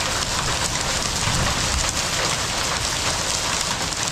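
Heavy rain pouring down in a storm: a loud, steady hiss of dense drops hitting.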